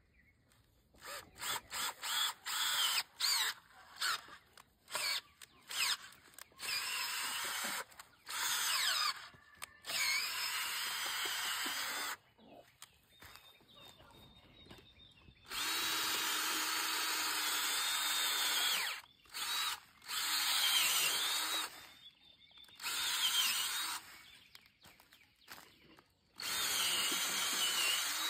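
Cordless drill turning a 24-inch spiral planting auger down into soil, run in many short trigger bursts at first and then in longer runs of a few seconds each, its motor whine rising and falling as the auger bites.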